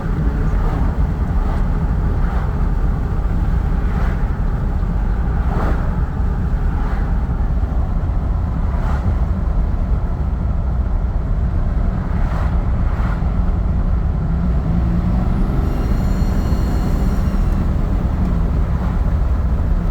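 Turbocharged vehicle engine running steadily, with an abnormal noise from the turbocharger: short rushing sounds repeating about every second, and a high whistle that rises and holds for about two seconds near the end.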